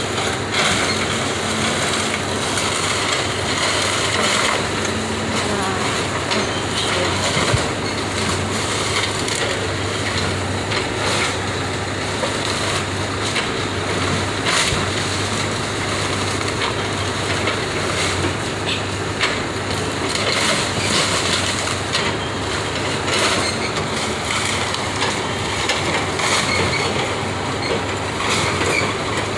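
Caterpillar tracked excavator demolishing a wood-frame house: the diesel engine runs with a steady low hum while the bucket crushes and breaks up timber and debris, with frequent cracking and snapping of wood throughout.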